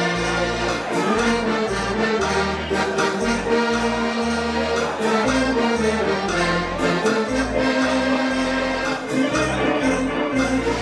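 Decap dance organ playing a dance tune: accordion and pipe melody over a bass line that steps from note to note in a steady beat.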